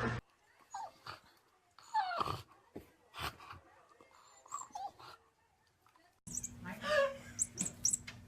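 Dog whining in a string of short, falling, high-pitched whimpers.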